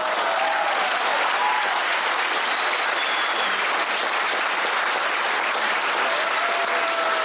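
Audience applauding steadily, with a few faint voices heard over the clapping.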